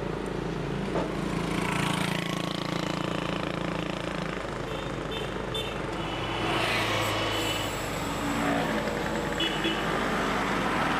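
Road traffic on a city street: motor vehicle engines running and passing in a steady drone, with a few short high chirps or squeaks twice in the middle.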